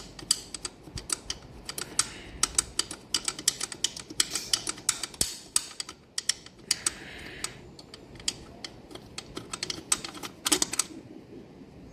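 Quick runs of sharp metallic clicks from a wrench and bolts being worked to remove the Yamaha Neo 125 scooter's CVT cover, with a short scrape about seven seconds in.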